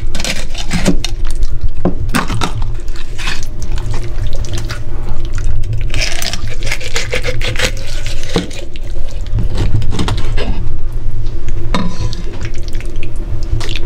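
A kitchen knife cutting the head off a chub mackerel on a cutting board: repeated clicks and knocks of the blade through the fish and against the board, with a longer scraping stretch about six seconds in, over a steady low hum.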